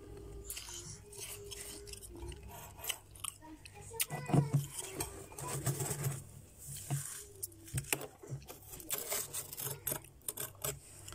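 Loose freezer frost crunching and crackling as a hand squeezes and crumbles it in a bowl: a string of crisp crunches, loudest about four seconds in.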